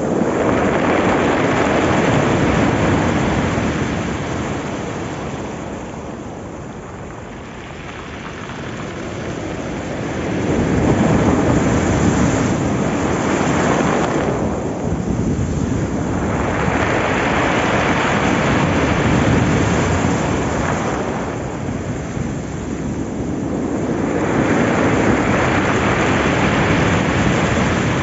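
Rough surf: waves breaking close by and white foam rushing and hissing up the beach. The rush swells and eases in slow surges, several seconds apart.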